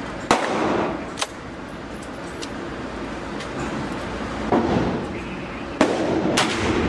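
Gunshots at an indoor shooting range: two sharp reports about a second apart near the start, then two louder ones about half a second apart near the end, with steady background noise between them.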